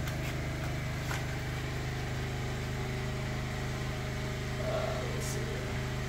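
A steady, low mechanical hum that runs on unchanged, with a faint click about a second in and a brief hiss about five seconds in.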